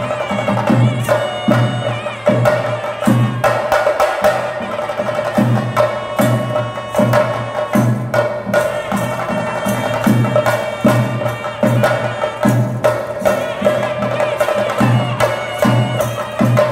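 Theyyam temple percussion and wind music: drums and cymbals beat a fast, dense rhythm with heavy low strokes about every two-thirds of a second, under a held melody on brass-belled wind instruments.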